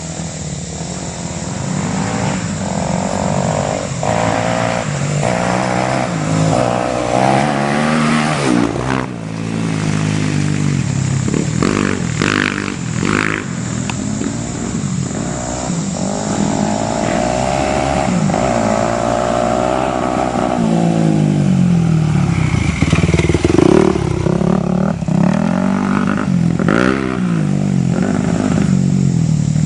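Dirt bike engines revving as the bikes ride a forest trail, the pitch repeatedly climbing and dropping with the throttle and gear changes. The engine sound grows louder in the second half.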